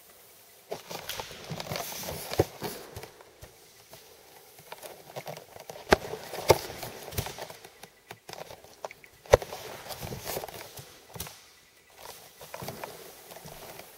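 A T-bar applicator pad being pushed through wet floor finish on a hardwood floor, making an irregular rubbing swish. A few sharp knocks about halfway through, three of them loud.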